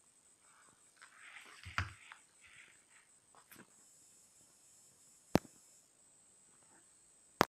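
Faint dead-air background of a recorded phone call after the other end has hung up: a steady faint high-pitched whine, a little faint rustling about a second in, and two sharp clicks near the end.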